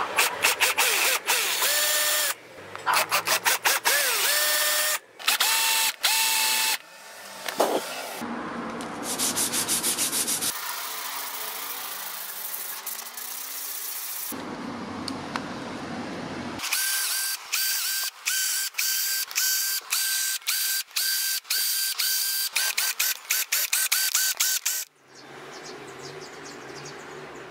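Hand-tool workshop work: runs of rapid, sharp strokes, many with a brief ringing tone, about three a second in the later run. They are broken by short pauses and by a stretch of steadier scraping noise in the middle, and it goes quieter near the end.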